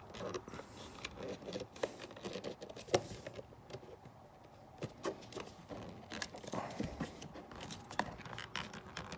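Scattered clicks and light knocks from a desk power grommet being handled and tightened into place in a sofa's center console, with a pause in the middle.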